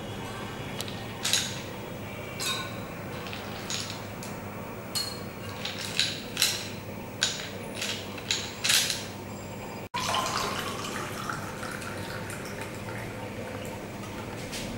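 Crushed ice spooned into glasses of lemon water: about a dozen sharp clinks of ice and a metal spoon against glass over the first ten seconds. After a break about ten seconds in, lemon water pours from a jug into a glass, its pitch rising as the glass fills.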